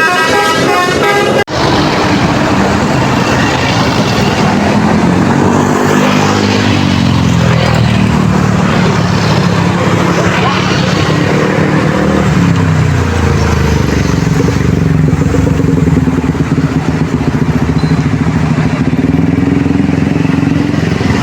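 A bus's multi-tone telolet horn plays a melody for the first second and a half, then cuts off abruptly. After that come engine and traffic noise from buses and motorcycles moving past. One engine's pitch falls around five to eight seconds in, and a steadier engine hum follows, with some voices.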